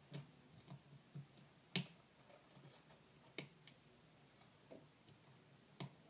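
Scattered sharp clicks and light taps from hands handling a small homemade alarm panel and its clip-leads, about eight at uneven intervals, the loudest a little under two seconds in.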